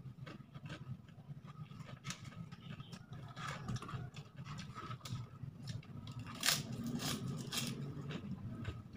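Eating by hand: fingers scraping and picking rice off a plate lined with crinkly paper wrapping, and chewing. It comes as many short rustles, scrapes and clicks over a low steady hum, the loudest about six and a half seconds in.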